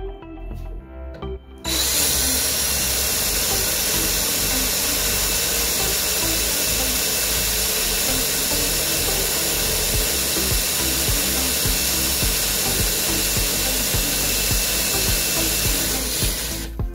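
Cordless drill running steadily, its twist bit boring a hole through the sheet-metal side plate of a snowblower's auger housing. The drilling starts about two seconds in and stops just before the end.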